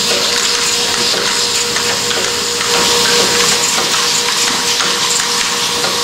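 DEL Model ILPS intermittent lid plugging machine running: a steady, loud hiss with light clattering and a steady hum underneath.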